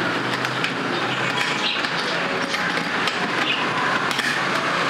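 A steady rushing noise, with light clicks and taps from the mount and latch of a metal motorcycle top box being handled.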